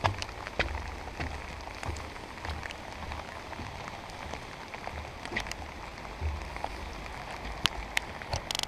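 Steady rain falling, with scattered sharp taps of drops close by and dull low thuds of footsteps at a walking pace on the wet bridge deck. A brief high buzz comes near the end.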